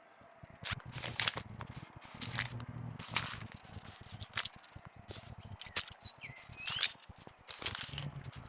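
Irregular crackling and rustling of leaves and stalks brushed and trodden while walking among flattened crop plants. A short bird chirp about six and a half seconds in.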